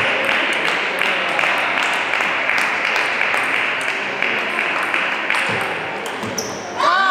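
Table tennis rally: the celluloid ball clicking back and forth off bats and table over the steady noise of a busy sports hall. Near the end a loud voice cries out as the point is won.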